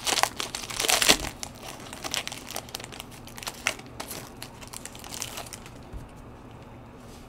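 Plastic foil trading-card pack wrapper crinkling as gloved hands open and handle it. The crackle is densest in the first second or so, then comes in scattered bursts.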